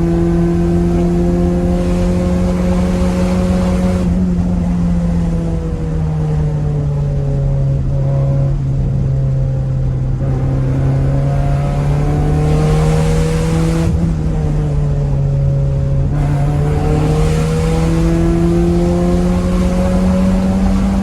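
Honda Civic EJ6's four-cylinder engine pulling under throttle on a winding road, backing off twice so that the engine note sinks, then climbing in pitch again, over a steady low road rumble.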